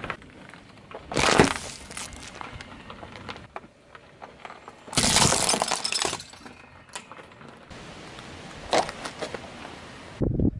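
Car tyre rolling over and crushing small objects, with a sharp crunch about a second in. A longer stretch of cracking and splintering follows around the middle as the tyre goes over a pile of thin wooden sticks, and a shorter crack comes near the end.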